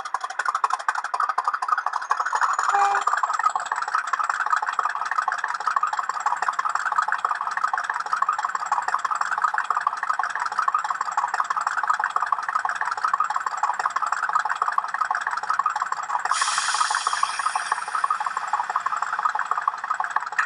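Hornby HM7000 sound decoder playing a Class 50 diesel locomotive sound profile through a model locomotive's small speaker: a steady engine running sound with little bass. About two seconds in, a whistle rises in pitch and then holds high. Near the end a brighter, higher sound comes in for about two seconds.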